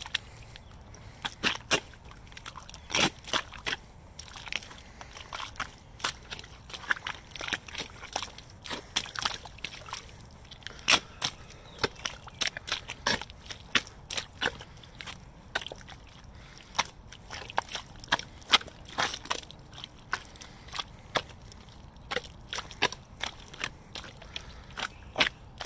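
Rubber Hunter boots squelching and splashing through ankle-deep mud, step after step, as a long irregular string of short wet squishes, several a second.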